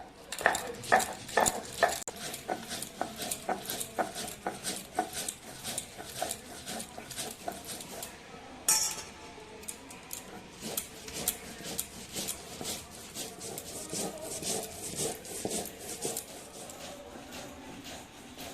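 Poppy seeds being ground into paste by hand: a steady run of short knocking and scraping strokes, about two to three a second, with one louder knock about halfway through.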